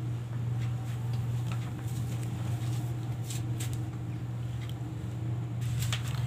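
Faint scratches and light ticks of a ballpoint pen and hand on notebook paper, over a steady low hum.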